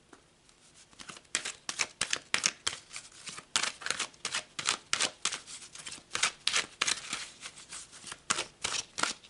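A large deck of tarot cards being shuffled by hand, the cards slipping and slapping against each other in quick swishes, about two to three a second, starting about a second in.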